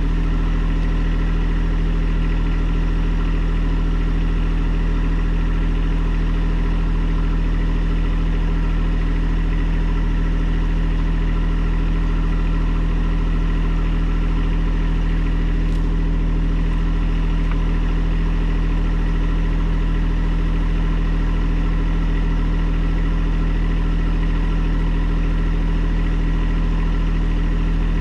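Engine idling steadily at a constant speed, with no revving.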